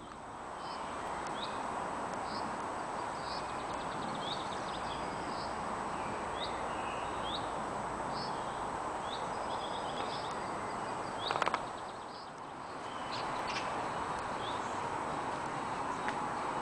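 Small birds chirping: short high notes repeated roughly once a second, over a steady outdoor background hiss. A brief clatter about eleven seconds in.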